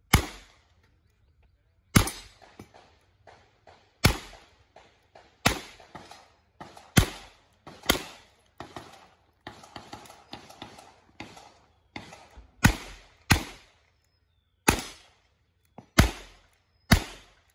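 Smith & Wesson Model 929 9mm revolver fired in a string of single shots, each a sharp crack a second or two apart with a short echo. There is a pause of a few seconds near the middle filled with fainter pops, then the shooting resumes.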